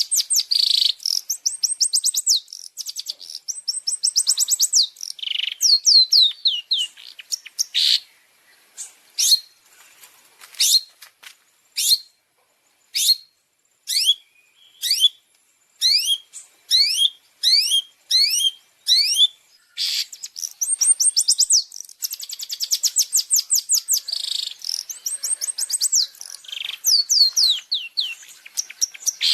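Long-tailed shrike (cendet) song: fast trills of high, downward-sweeping notes. A third of the way in these give way to single down-slurred notes about one a second, and the fast trills return in the last third.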